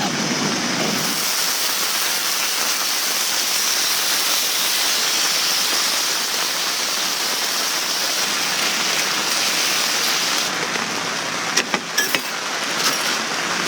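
Steady light rain falling, an even hiss, with a few sharp clicks near the end.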